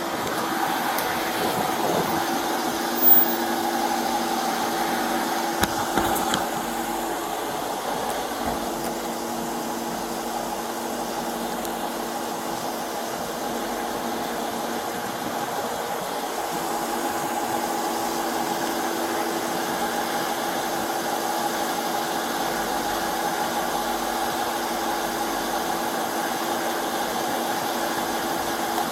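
A vehicle engine idling with a steady hum, and a sharp click about three seconds in.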